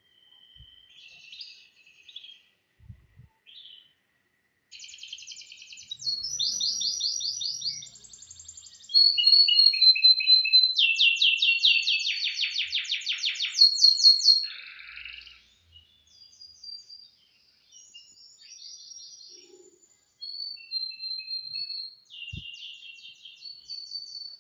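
Domestic canary singing: phrases of fast-repeated trilled notes and rolls, high-pitched, with short pauses between phrases. The song is loudest in a long rapid roll through the middle.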